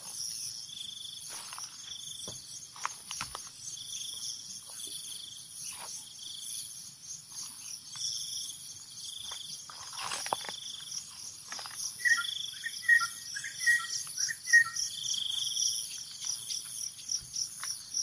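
Steady chorus of forest insects trilling and pulsing, with a few soft rustles of footsteps in dry leaf litter. About two-thirds of the way through comes a short run of quick chirps.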